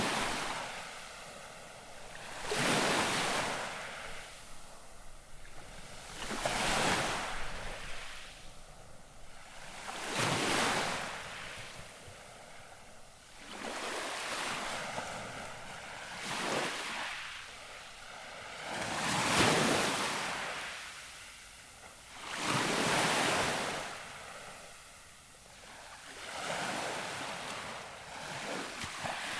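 Gentle waves lapping the shore, each small wave washing in and swelling up about every three to four seconds, with quieter hiss between.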